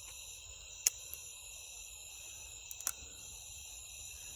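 Steady chorus of crickets and other night insects, broken by a sharp click about a second in and a couple more clicks near three seconds.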